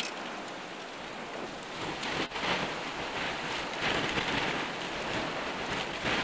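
Hurricane-force wind and driving rain beating on a vehicle, heard from inside the cabin. The noise swells and eases in gusts, with a single sharp knock a little over two seconds in.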